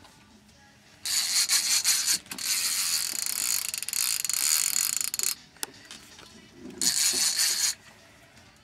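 Baitcasting reel's drag buzzing as a hooked stingray pulls line off: one long run of about four seconds, then a short second run near the end.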